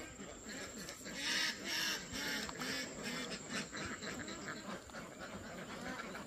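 Ducks quacking over and over in quick succession, with a brief stretch of splashing water between about one and three seconds in.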